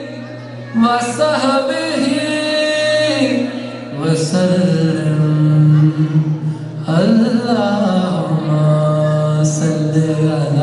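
Naat being sung: a voice with wavering, ornamented melodic lines over a steady low drone.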